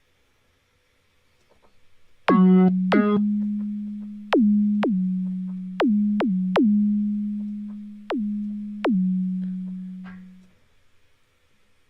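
Software synthesizer in Logic Pro played from a Novation Launchkey 61 MK IV keyboard controller: about eight low notes moving between two close pitches. Each starts with a quick downward sweep in pitch and settles into a steady tone that fades away, and the first two are buzzier. The notes stop a little before the end.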